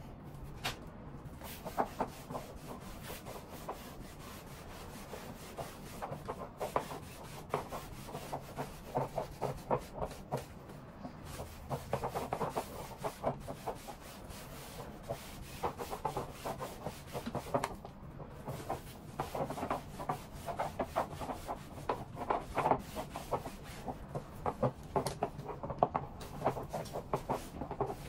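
Garment steamer head brushed up and down a pair of trousers, making irregular bursts of rubbing and small clicks as it strokes the fabric.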